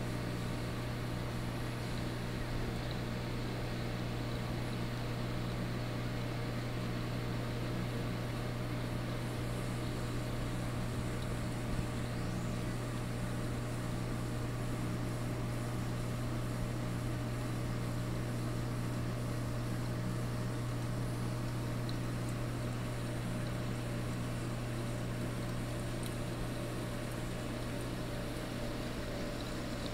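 Steady low hum over a constant hiss from a reef aquarium's running pumps and circulating water.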